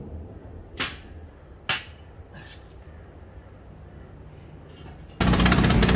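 Three short whooshes, about a second apart, over a low hum; then, about five seconds in, a loud, steady mechanical noise cuts in abruptly.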